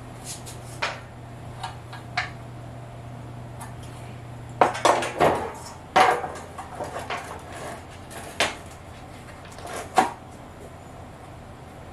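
Sheet-steel cabinet panels and bars clanking and knocking as they are handled and fitted together: scattered sharp metal knocks, a busier clatter about halfway through, and one loud knock near the end.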